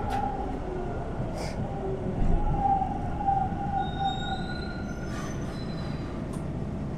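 Toronto subway T1 train heard from inside the car as it runs into a station: a steady rumble of wheels and running gear, with thin squealing tones from the wheels on the rails, loudest around the middle.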